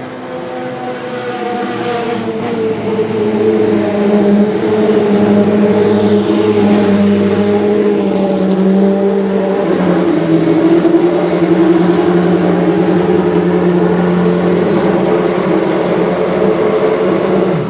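Dallara GP2 race car's V8 engine running hard, growing louder over the first few seconds and then holding loud and steady; the sound cuts off abruptly at the end.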